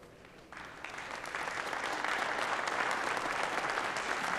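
Audience applauding: the clapping starts thin and swells to full applause within the first two seconds, then holds steady.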